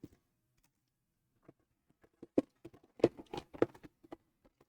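Irregular light taps and clicks of tools and leather being handled on a workbench, starting about a second and a half in and bunching together around three seconds in.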